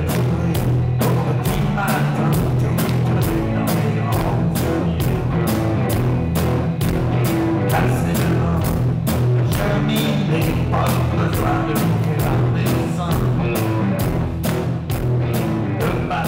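Pop-rock band playing with a steady drum beat: electric guitars, bass and drum kit, with a female singer's voice over them.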